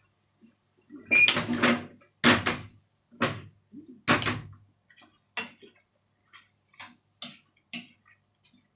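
Kitchen utensils and dishes knocking and clattering in a string of separate hits. One ringing clink comes about a second in, and the hits grow fainter toward the end.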